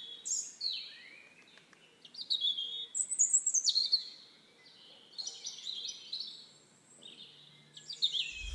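Small songbird singing outdoors: a run of short, high chirping and trilling phrases separated by brief pauses. Right at the end a louder rushing noise cuts in.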